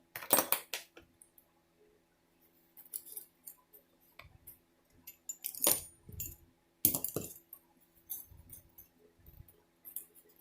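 Small metal tools from a pocket tool kit being handled and set down: scattered clicks and light metallic clinks, a few seconds apart, over a faint steady hum.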